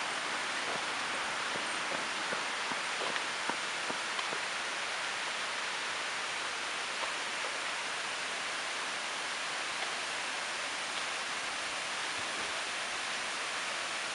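Steady rushing of water from a nearby stream or cascade, an even hiss with no change. A few faint footfalls on gravel sound in the first few seconds.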